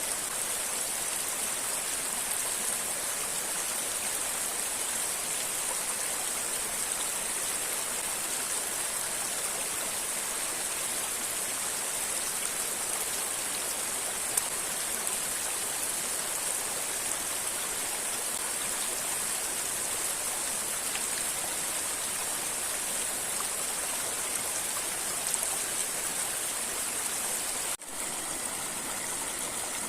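River water rushing steadily over rocks near a waterfall, an even hiss. It drops out for an instant about two seconds before the end.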